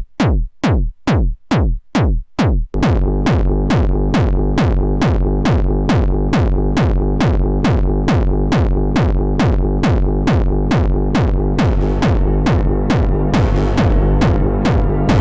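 Techno played live on a Eurorack modular synthesizer: a kick drum thumps alone about twice a second, then about three seconds in a steady bass line and sustained synth tones join the beat. Near the end a hissing high noise layer comes in.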